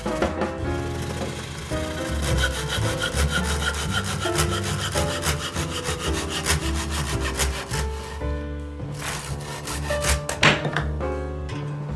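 Hand saw cutting through wood in quick, even strokes, about five a second, over background music.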